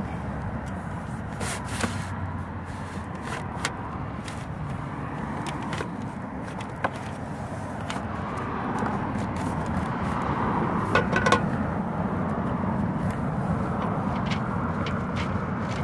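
Steady outdoor background noise with scattered light clicks and taps, and a short cluster of louder clicks with a brief squeak about eleven seconds in.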